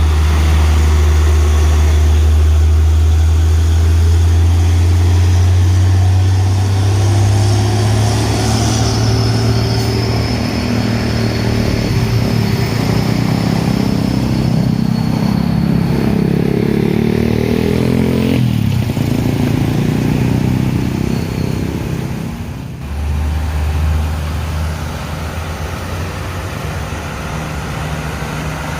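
Hino 500 Wingbox truck's diesel engine labouring up a steep climb. Its note rises steadily as it revs harder, then drops suddenly about eighteen seconds in, as at a gear change, and runs on lower and quieter.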